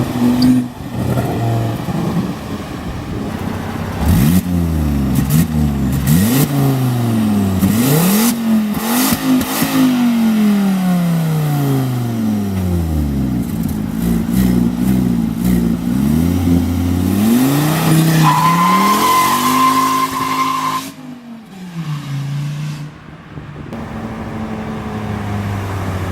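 Volvo S40 T5's turbocharged 2.5 L inline-five revving up and down hard again and again, very loud through a blown-out exhaust flex pipe that leaks right after the turbo, so it sounds almost like an open, catless turbo outlet. Near the end a steady high squeal runs for about two seconds before the engine drops off.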